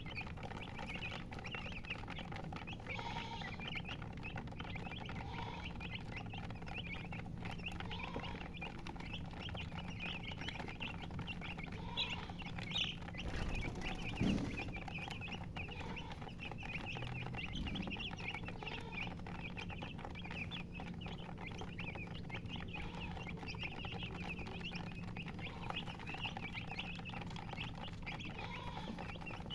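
Chickens chirping continuously, many high peeps overlapping, with a few louder calls and a brief low thump about halfway through.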